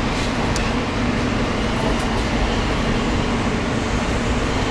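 New York City Subway E train in motion, heard from inside the car as it runs past a station platform: a steady rumble of wheels on rail under a constant low hum, with a few faint clicks.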